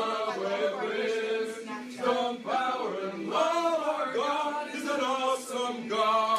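Male voices singing a chant-like tune without instruments, with long held notes.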